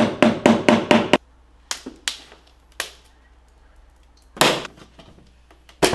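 A screwdriver is tapped and wedged into the glued seam of a plastic battery case to pry the lid off, starting with a quick run of about six sharp knocks, roughly five a second. Scattered single clicks follow, then a louder cracking burst about four and a half seconds in as the glue bead gives.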